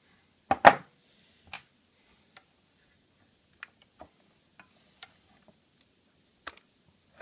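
Handling noise from an opened HP 560 access point: two knocks of its plastic housing about half a second in, then scattered faint clicks of a metal tool and fingers against the circuit board and case.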